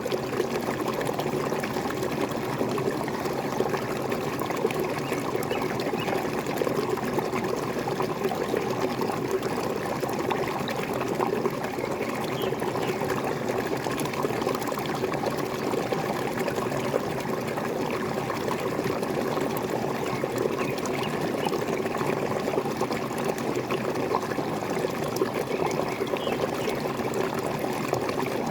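Small waterfall pouring and splashing steadily, a continuous rush of falling water.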